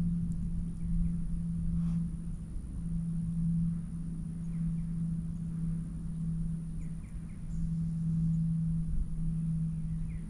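Outdoor ambience: a steady low hum over a low rumble, with a few faint runs of short bird chirps now and then.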